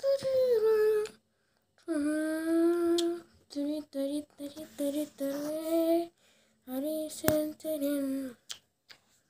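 A high voice singing a slow melody without accompaniment, in held notes grouped into three phrases with short breaks between them, and a sharp click during the last phrase.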